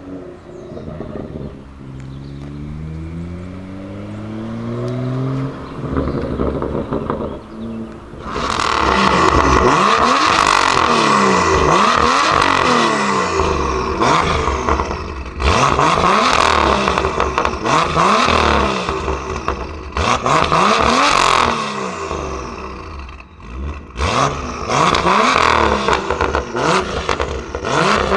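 BMW M2 F87's turbocharged straight-six breathing through an aftermarket Armytrix exhaust. The engine note climbs over the first few seconds, then from about eight seconds in it is revved hard again and again, each rev climbing and dropping back, with short sharp cracks between some of the revs.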